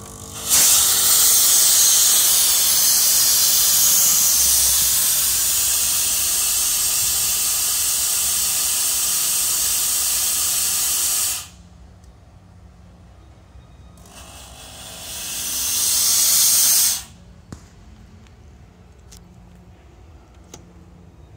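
Chauvet Geyser fog machine shooting out fog with a loud, steady hiss that cuts off sharply after about eleven seconds. A second, shorter blast follows a few seconds later, swelling in loudness over about three seconds before it stops abruptly.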